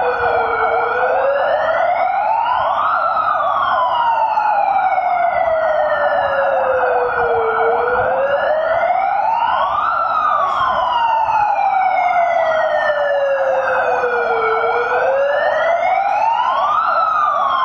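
An alarm siren wailing, its pitch rising for about three seconds and falling slowly for about four, two and a half times over, on top of a steady harsh drone; it cuts off suddenly at the end. It sounds the alarm as a fire is set for the drill.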